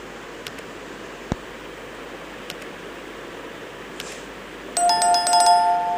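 Sound effects of a like-and-subscribe overlay: a few faint mouse clicks, then about five seconds in a loud two-tone bell chime that rings on.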